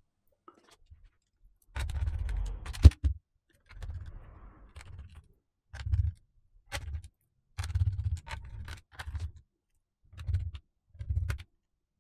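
Plastic laptop case being handled and closed up, with small screws being fitted: a series of short knocks, clicks and light scrapes with pauses between them.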